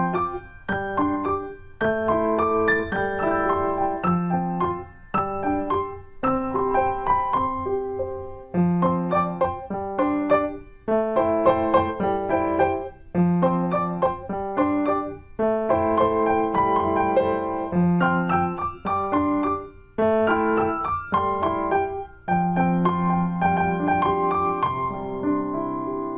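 Background piano music: a tune played in short phrases of a few notes, with brief pauses between phrases.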